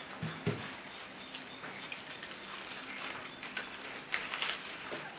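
Dry, charred maize husks rustling and crackling as roasted corn cobs are stripped by hand, with a louder crackle about four seconds in.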